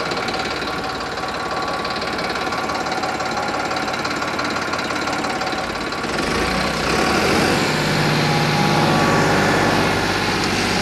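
Turbocharged Farmtrac 45 tractor's three-cylinder diesel engine running under load as it pulls a 13-tine cultivator through hard ground. It grows louder about seven seconds in.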